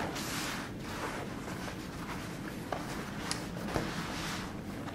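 Hands unfolding and smoothing new raw denim jeans on a wooden table: the fabric rustles and rubs, with a few light clicks scattered through.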